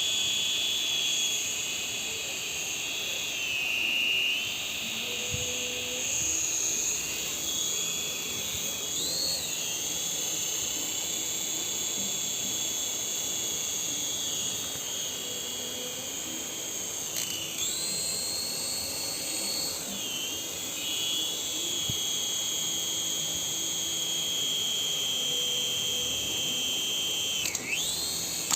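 Small electric motor of an RC helicopter running with a high-pitched whine. Its pitch dips and recovers several times as the throttle changes, then falls sharply near the end and the whine stops.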